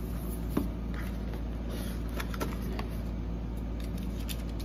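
Cardboard speaker box being handled and opened: the flip lid swung open and an inner cardboard lid lifted, giving light scuffs and a sharp tap about half a second in, with a few softer taps later, over a steady low hum.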